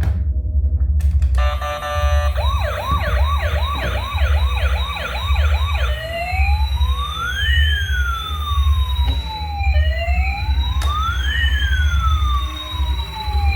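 Electronic siren of a toy emergency vehicle: a fast yelp of quick repeated rising sweeps for a few seconds, then a slower wail rising and falling twice. A steady low hum runs underneath.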